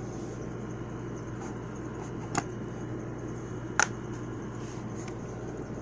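Two short plastic clicks about a second and a half apart as the HP laptop's bottom access cover is pressed down and snapped into place, over a steady low hum.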